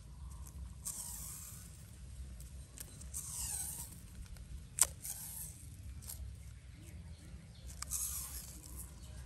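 Black plastic tape pulled off its roll in short, noisy strips as it is wound tightly around a fruit, with one sharp click about five seconds in.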